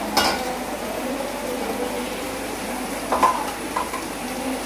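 A steel serving spoon scoops mutton biryani from a large metal pan onto a plate. It scrapes through the rice and clicks against the plate and pan a few times, about a second in, around three seconds in and near the end, over a steady hiss.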